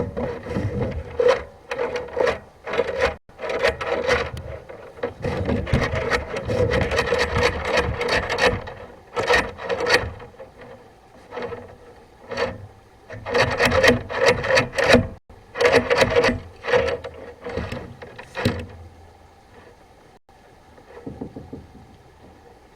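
Sewer inspection camera's push cable being fed by hand into the drain, scraping and rubbing in irregular strokes with sharp clicks over a steady hum. It mostly stops about three-quarters of the way through, leaving a few fainter rubs near the end.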